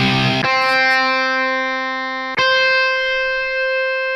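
Sampled guitar notes from a Ketron SD90 sound bank played back one after another. A rough, noisy attack settles into a steady tone, then a fresh sharply plucked, higher note about two and a half seconds in holds on evenly, its sustain carried by a sample loop.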